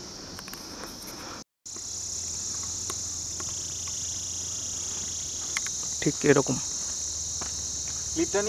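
Steady, high-pitched chorus of insects in the hillside vegetation. It drops out for an instant about a second and a half in and comes back louder. A brief human voice is heard about six seconds in.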